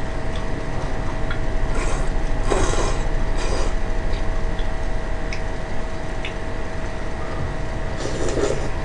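Buckwheat kalguksu noodles slurped from a bowl in a few short bursts, the longest near the end, with light clicks of chopsticks against a metal bowl over a steady low hum.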